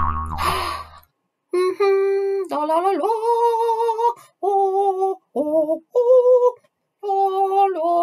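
A woman singing "la, la, la, laaaa" in mock-operatic style: held, wavering notes in short phrases with brief gaps. A short burst of noise with a low hum comes first, in the opening second.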